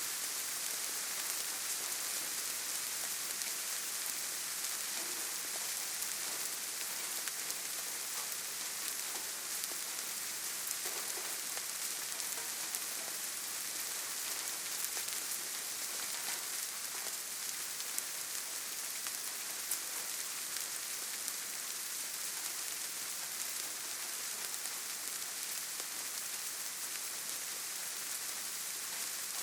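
Steady light rain pattering on leaves and ground, an even hiss of many small drops with no letup.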